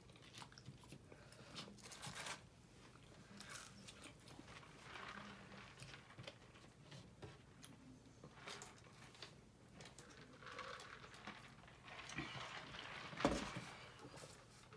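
Faint handling and eating noises: soft rustles, small taps and chewing, with a sharper knock about 13 seconds in.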